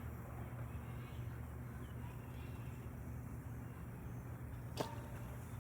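Steady low background rumble with no clear source, and one faint short click near the end.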